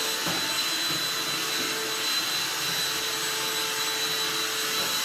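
Steady whooshing hum of a running electric appliance, with a thin high whine that stays level throughout.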